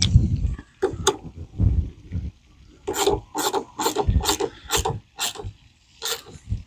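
Hand tool work on a truck's battery and cables: a few low knocks and thumps, then a quick run of about eight rasping back-and-forth strokes, roughly three a second, and one more stroke near the end.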